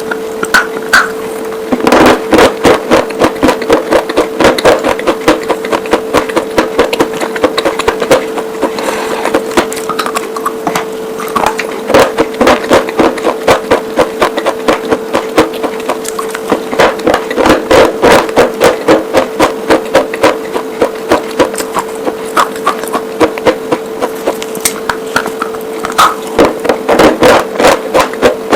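White slate pencils and bars being bitten and chewed: rapid dry crunches, several a second, coming in runs with short pauses, over a steady hum.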